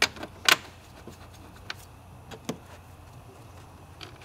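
Tools and parts being handled in a car's engine bay while the battery tray is refitted: a few sharp clicks and knocks, the two loudest in the first half-second and fainter ones after.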